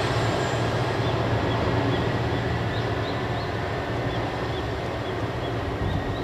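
Heisei Chikuhō Railway 400-series diesel railcar pulling away, its diesel engine's steady low drone slowly fading with distance.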